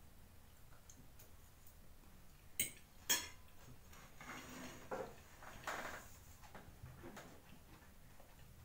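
Metal fork clinking against a ceramic plate, two sharp clinks about three seconds in, followed by softer handling and rustling noises.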